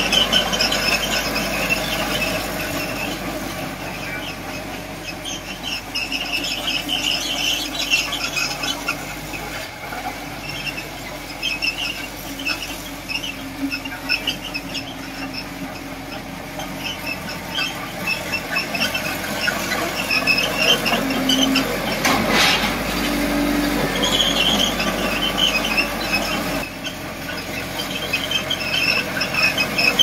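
A bulldozer's steel crawler tracks squeal in repeated high bursts as it works, over the steady drone of its diesel engine. There is one sharp clank about two-thirds of the way through.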